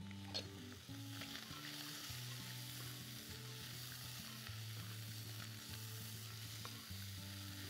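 Chopped sausage, cashews and peanuts sizzling in hot oil in a saucepan as they are stirred with a spoon, with a few light clicks of the spoon against the pan. Soft low background music runs underneath.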